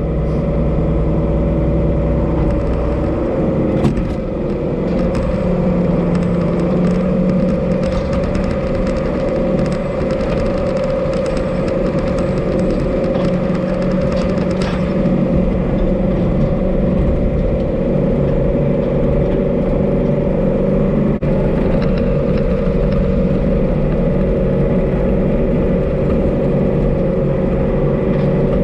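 Tractor diesel engine running steadily under way, its pitch settling lower about four seconds in, with light rattles and clicks over it.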